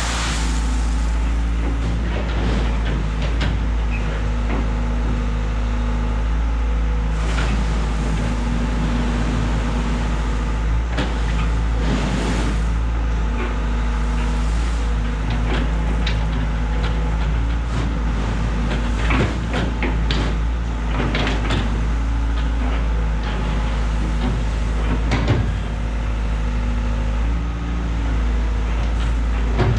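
Diesel engine of a construction machine running steadily under work, with frequent short clanks and scrapes as 3/4-inch clean stone is moved and spread.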